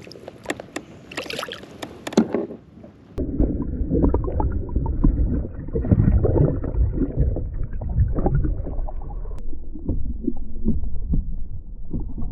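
A few light clicks and knocks, then about three seconds in a steady low rumbling and gurgling of water against a kayak hull starts suddenly and carries on.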